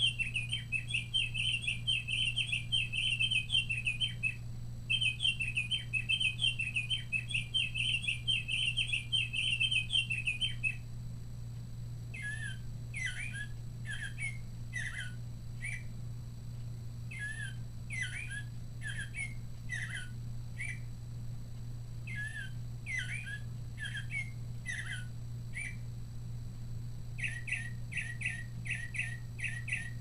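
Mark Feldstein singing bird clock playing its recorded bird songs through its small speaker, set off by the test button. A House Finch's long warbling song, broken once briefly, runs for about the first ten seconds. Then American Robin song phrases with falling notes follow, and near the end the Northern Mockingbird's rapid repeated notes begin.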